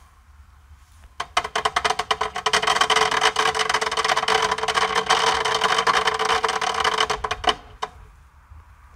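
Crackling firework fountain burning inside a closed washing machine drum: a dense, rapid crackle that starts about a second in and dies out about seven seconds later.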